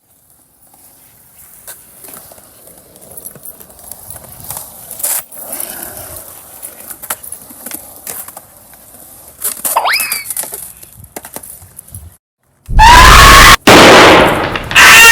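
Faint clatter of skateboard wheels and the clicks of the board landing. About thirteen seconds in, a sudden, extremely loud, distorted blast breaks in, stops for a moment, then starts again.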